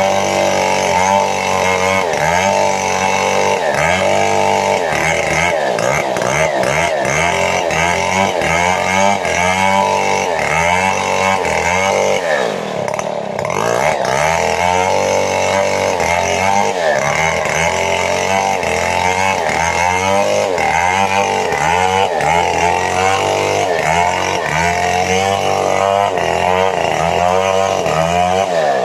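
Two-stroke chainsaw running hard, cutting sengon wood, its engine speed rising and falling over and over as the load changes. The revs drop briefly about halfway through, then climb again.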